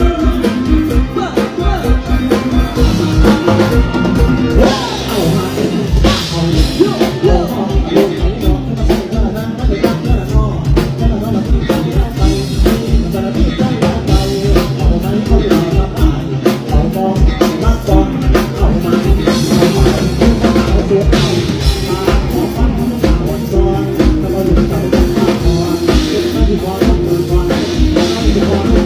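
Live Isan mor lam band music played loudly over a stage PA, the drum kit keeping a steady, fast beat.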